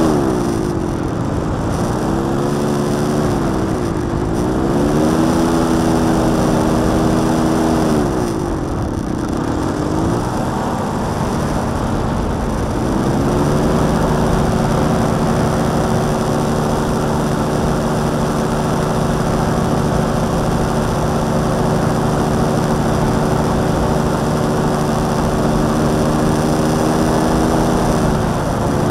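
Homebuilt paratrike's motorcycle engine and propeller running in flight. The engine note drops and rises again twice in the first dozen seconds as it is throttled back and opened up, then holds steady before falling off again near the end.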